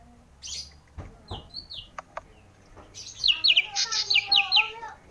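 A songbird sold as a 'ranting' bird, singing with a few sharp ticks and short high chirps, then a fast, loud run of repeated high notes about three seconds in, over lower wavering calls.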